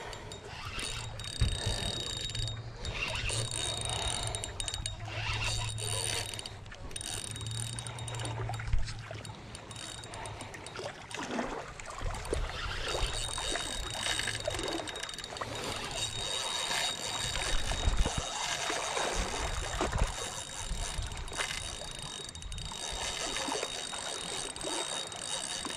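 Spinning fishing reel being worked against a large black drum on the line: gears whirring as it is cranked, with clicking from the reel's mechanism, over a background rush of wind and water. A low steady hum from the cranking runs for about the first ten seconds.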